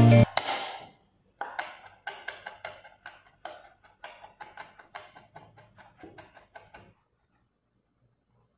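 Knife mincing garlic on a wooden cutting board: a run of quick taps, about four a second, that stops about a second and a half before the end. At the start, the tail of a music ending fades out.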